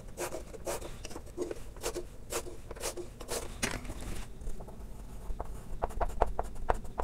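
Chalk writing on a blackboard: a run of short scratches and taps as letters are written, with a brief lull a little past the middle and a quicker run of strokes near the end.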